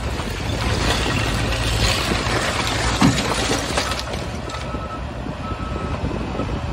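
Bobcat skid-steer loader's diesel engine running under load as it drives and turns with a bucket of brick debris, with one sharp clank about three seconds in. Faint short beeps sound a little past the middle.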